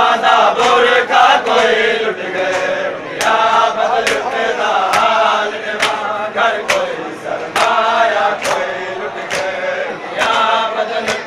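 A group of men chanting a mourning lament (nauha) together in unison while beating their chests with open hands in matam, each sharp slap landing in time with the chant about once a second.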